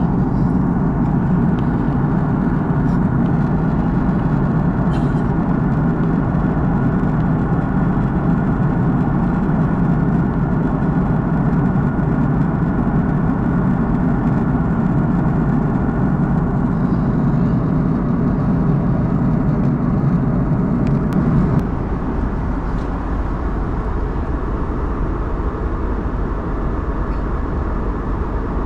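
Steady cabin noise of an Airbus A340-600 airliner at cruise altitude: the constant rumble and rush of airflow and its four Rolls-Royce Trent 500 jet engines, heard from a window seat. The low rumble eases slightly a little over two-thirds of the way in.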